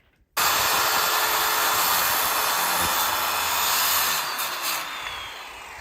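Electric power saw cutting a piece of wood. It starts abruptly about half a second in, runs steadily for about three and a half seconds, then winds down with a falling whine.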